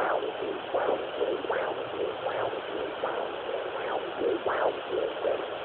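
A fetal doppler monitor sends out a rhythmic whooshing pulse over a steady hiss. Strong swishes come a little more than once a second, with fainter ones in between.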